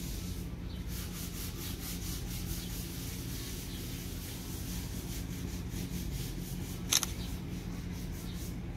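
Handling noise from a handheld smartphone: fingers rubbing and shifting against the phone near its microphone, over a steady low rumble. One sharp tap about seven seconds in is the loudest sound.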